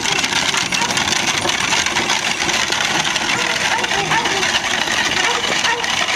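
A horse-drawn buggy rolling along a gravel driveway: its spoked wheels and the horse's hooves make a steady crunching on the gravel.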